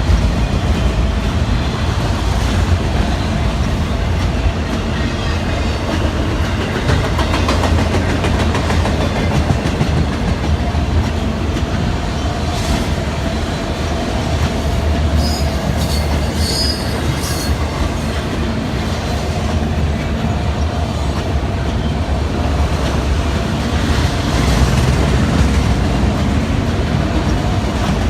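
Slow CSX freight train of autorack cars rolling past, a steady rumble of wheels with clickety-clack over the rail joints. A few brief high squeals come from the wheels a little past the middle.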